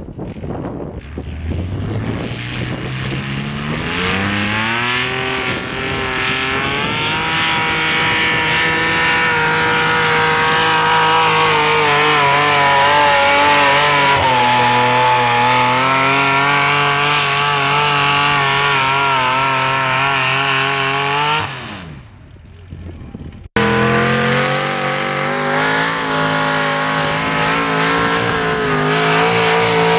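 Modified garden pulling tractor's engine, breathing through open exhaust stacks, revs up over the first few seconds. It is then held at high revs, its pitch wavering under load as it drags a weight-transfer sled. About three-quarters of the way through the engine winds down, and then, abruptly, another mini pulling tractor's engine runs at high revs under load.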